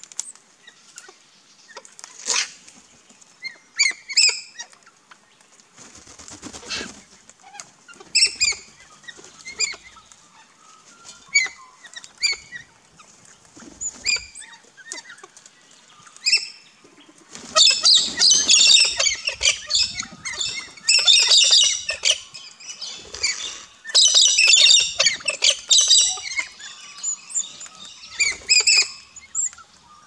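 Mixed Australian backyard birds at a feeder: short calls repeated every second or two. About halfway through they give way to some ten seconds of loud, dense squawking chatter, with wings flapping now and then.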